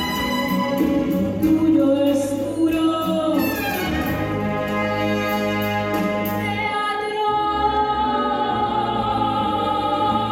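A soprano singing into a microphone, accompanied by a full symphony orchestra, in an orchestral arrangement of Latin songs.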